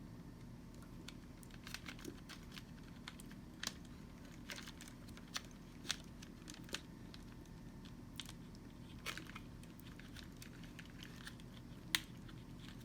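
Faint, scattered clicks and light taps of small parts of a Robot Coupe MP 600 blender foot being handled and fitted by hand, the sharpest click near the end, over a steady low hum.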